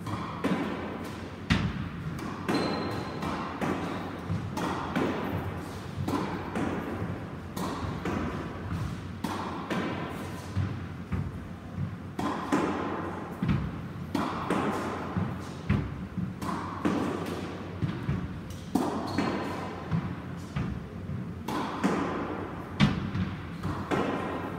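A squash ball struck again and again with a racket and hitting the court walls and floor: a run of sharp thuds at irregular intervals, about one a second.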